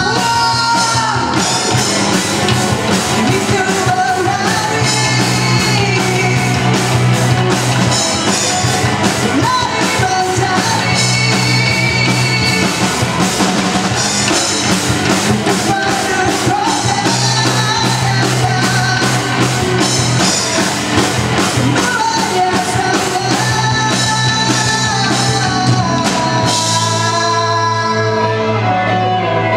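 Live rock band playing loudly: distorted electric guitars and a drum kit, with a vocalist singing over them.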